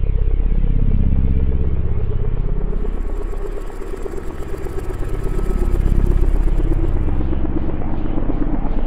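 Dark ambient drone music from synthesizer and samples: a deep, continuous rumble that swells, dips and swells again, with slowly sweeping overtones above it and a held mid tone that drifts slightly lower in pitch.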